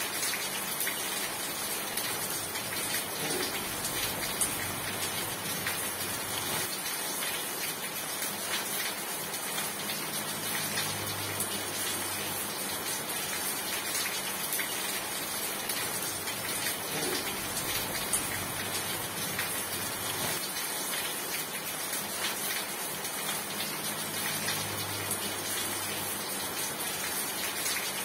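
Rain falling steadily: an even hiss with many small drop taps throughout.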